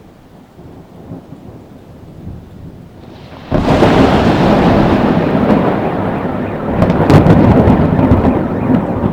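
Thunder: a faint low rumble, then about three and a half seconds in a sudden, loud thunderclap from a close lightning strike that rolls on, with sharp cracks around seven seconds.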